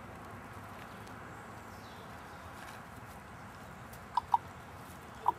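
Quiet outdoor background, then about four seconds in two sharp, hollow tongue clicks, and another pair near the end: a person clicking their tongue to call a squirrel back.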